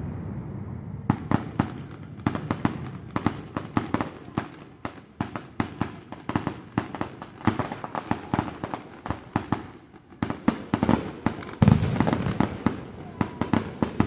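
Aerial fireworks going off: after a low rumble, rapid cracks and bangs come in quick succession from about a second in, several a second, with the heaviest boom near twelve seconds.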